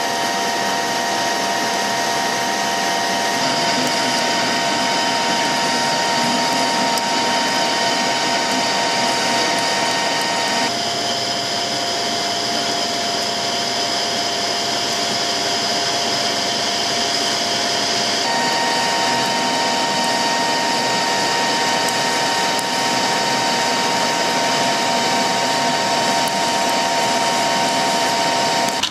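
Metal lathe running under power while a carbide-insert tool turns and faces a metal bar: a loud, steady machine noise with a whine of several steady tones, whose character shifts abruptly about 11 s and 18 s in. The insert is just starting to rub.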